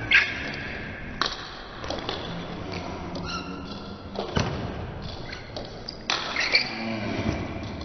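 Table tennis rally: the plastic ball clicking sharply off the bats and the table, hits roughly a second apart, each with a short ring, plus one heavier low thud about halfway through.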